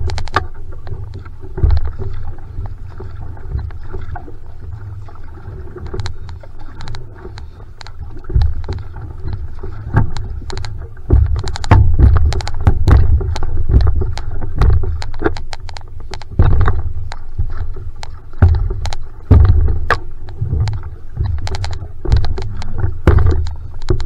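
Va'a outrigger canoe being paddled: water splashing and rushing with each stroke, with many sharp knocks and a strong low rumble that swells and fades throughout.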